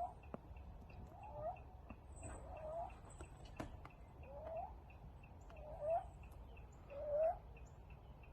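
A kitten wheezing with a short, rising, chirping squeak on each breath, about six times, a little over a second apart. The sound is the sign of his laboured, difficult breathing.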